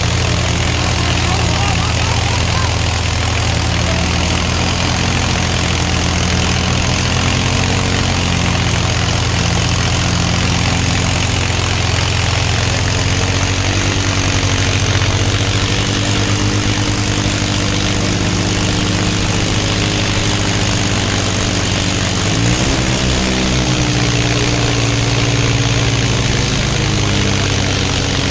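Diesel tractor engines running steadily, a heavy low drone, with a brief shift in engine pitch about 23 seconds in.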